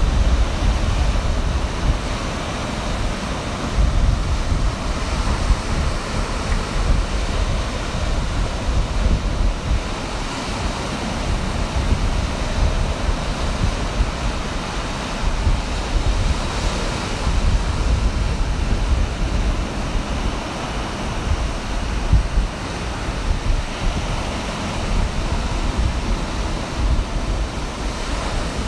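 Ocean surf breaking and washing up the beach in a steady roar, with wind buffeting the microphone as a fluctuating low rumble.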